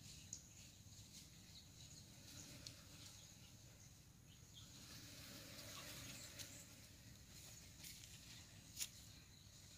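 Near silence: faint outdoor ambience with a thin steady high hiss and a few soft clicks, the clearest about nine seconds in.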